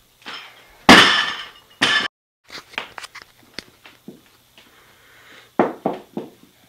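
A loaded barbell dropped from overhead hits the floor about a second in, with a loud impact and ringing clatter of the plates. It clanks again as it bounces or settles just before two seconds. Near the end come a few lighter knocks of the bar and plates.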